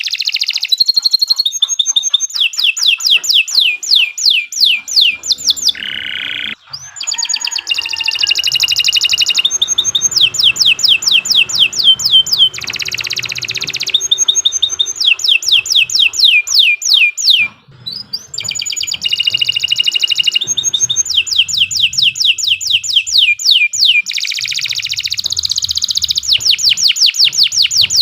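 Domestic canary singing a long, loud song of fast repeated trills and rolls, breaking off briefly twice, about six and eighteen seconds in.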